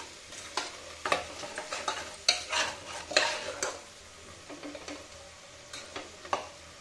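Metal ladle scraping and knocking against the inside of an aluminium pressure cooker as a thick onion-tomato masala is stirred and fried, with a faint sizzle underneath. The scrapes come irregularly, thickest in the first half, then only a few.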